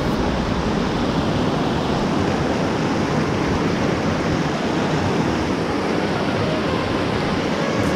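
A fast river rushing over boulders in whitewater rapids: a loud, steady rush of water.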